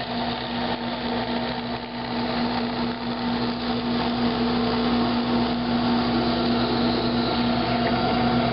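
Benchtop drill press running steadily, its 1/4 inch bit boring through two wooden blocks, with a constant motor hum.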